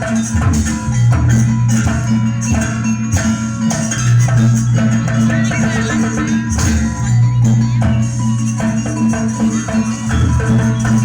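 Live jaranan gamelan music: struck metallophones play a busy repeating melody over drums and sustained low gong-like tones, with rattling percussion.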